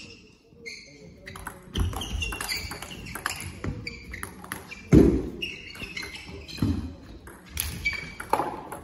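Table tennis rally: the celluloid-type plastic ball clicking off bats and table in quick back-and-forth exchanges, with one loud thud about five seconds in.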